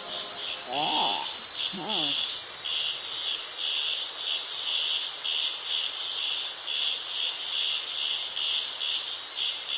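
Crickets chirping in a steady, even rhythm of about two pulses a second. Two short squeaky calls sound about one and two seconds in.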